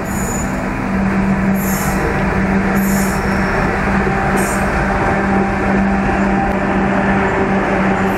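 WAG-7 electric freight locomotive running through at speed and passing close, hauling loaded open wagons: a steady heavy rumble of wheels on rail with a constant low hum from the locomotive. A few brief high squeals come in the first half.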